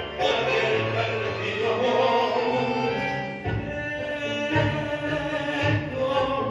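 Tango orchestra music with a singer over a steady bass line.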